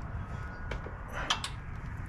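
A few light clicks and a short rattle about a second in, over a low steady rumble, as parts are handled during e-bike wheel and brake work.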